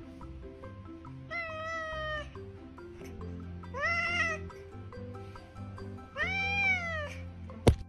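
Grey tabby cat meowing three times, each call drawn out and about a second long, the last one rising and then falling in pitch, over background music. A sharp click comes just before the end.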